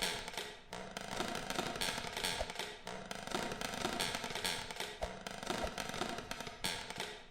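Church bells swinging freely, their clappers striking about twice a second in an uneven pattern, each stroke ringing on into the next.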